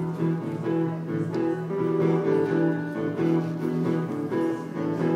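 Instrumental break between sung verses of an acoustic folk song: a low note is held throughout under a moving melody line.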